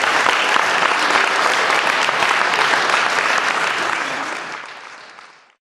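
Audience applauding after a song, a dense steady clapping that fades out near the end.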